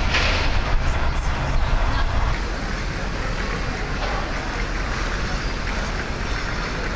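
City street traffic: a vehicle passes with a low rumble that eases off after about two seconds, leaving a steady background of street noise.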